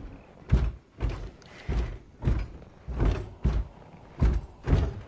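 Rhinoceros sound effect: a run of short, deep thumping sounds, about two a second.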